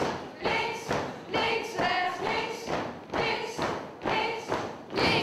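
A group marching and stamping their feet in step on a hard hall floor, about two stamps a second, with voices of the group sounding along.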